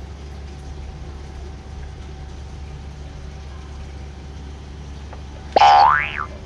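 A steady low hum, then near the end one short, loud, high squeal from a baby monkey that sweeps sharply up in pitch and falls away.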